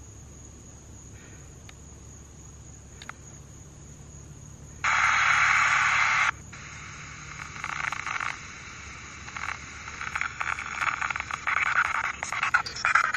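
Night insects trilling steadily. About five seconds in, a spirit box (a radio scanner sweeping through stations) cuts in with a loud burst of static for about a second and a half. Then it carries on in choppy fragments of static and broadcast sound that switch on and off rapidly.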